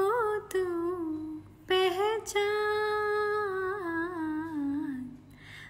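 A woman singing a Hindi Krishna bhajan unaccompanied: a short phrase, then one long held note with vibrato that slowly slides down in pitch and fades out near the end.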